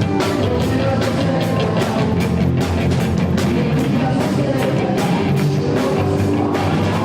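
A live gospel rock band playing loud, with drum kit and electric guitar driving a fast, steady beat.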